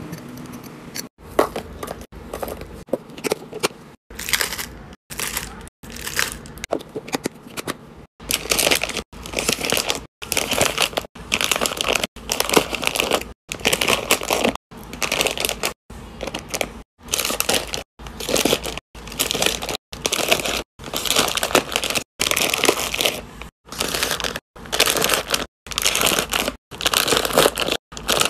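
Plastic candy wrappers and foil chip bags crinkling as they are handled and packed into containers. The sound comes in short stretches broken by brief silent cuts, quieter for about the first eight seconds and louder after.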